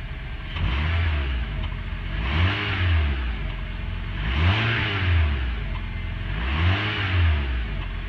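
Honda Civic's stock exhaust as the engine is blipped four times at standstill, each rev rising and falling about two seconds apart.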